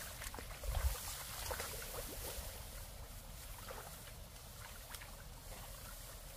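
Water splashing and sloshing as people wade and feel for fish by hand in a flooded rice paddy, with rice stalks brushing against them, and a low bump about a second in.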